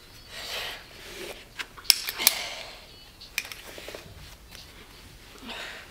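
Lap belt buckle on a leg extension machine being fastened: a few sharp metallic clicks, the loudest about two seconds in, with rustling of the strap between them.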